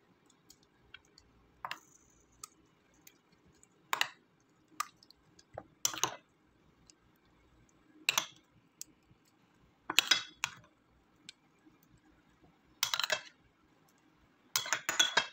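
Spoon tapping and scraping against a bowl and pan in short bursts about every two seconds, with a quick run of them near the end, as a blended tomato, ginger and chili paste is spooned onto boiled chicken pieces.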